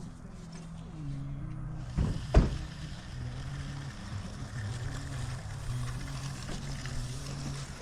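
A small engine running steadily with a low hum, with two sharp knocks about two seconds in, the second one the loudest.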